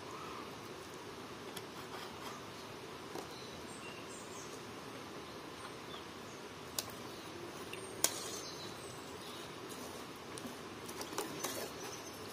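A steady low background hiss with two sharp light clicks in the middle. Near the end come soft clicks and wet rustling as peeled apple pieces are stirred by hand in a metal pot.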